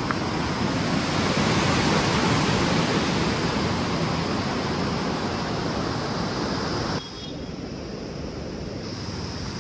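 Water rushing steadily down the stepped concrete channels of a lake spillway. About seven seconds in it cuts off suddenly to a quieter, steady outdoor wind noise.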